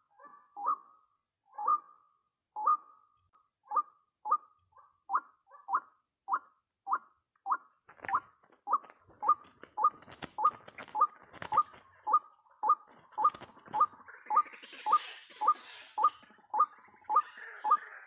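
White-breasted waterhen calls: a steady series of short rising notes, about two a second and quickening slightly. From about halfway, wing flapping and thrashing join in as a waterhen struggles caught in a snare.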